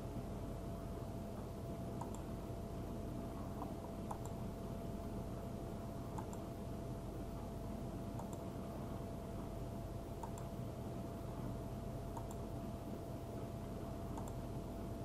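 Faint mouse-button clicks about every two seconds over a steady low hum with a constant thin tone.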